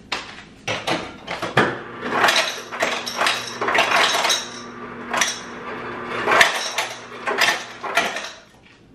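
Refrigerator door ice dispenser dropping ice into a drinking glass: a long run of clattering clinks over a steady motor hum, stopping about eight seconds in.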